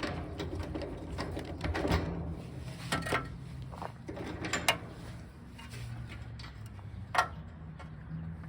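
Hand wrench work on a crusty roll-cage bolt: scattered metallic clicks and clinks, a few sharp ones spread through, over a low steady hum.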